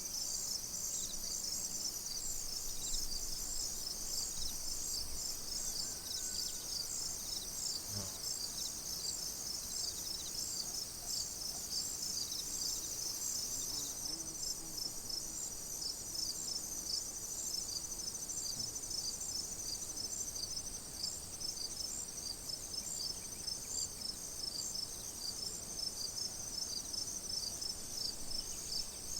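A chorus of crickets chirping, many overlapping high-pitched trills made of rapid, evenly repeated pulses that keep on steadily.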